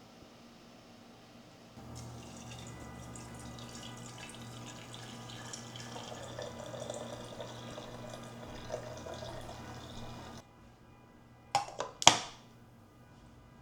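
Water running from a tap into a sink for about eight seconds, starting and stopping abruptly. Then come two sharp knocks, the second one louder.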